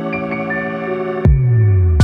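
Background music: held organ-like chords, then a sharp hit about a second in and a low bass note sliding downward.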